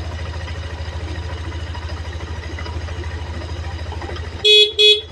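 Motorcycle engine idling with a steady low pulsing hum, then the horn sounds two short, loud toots near the end.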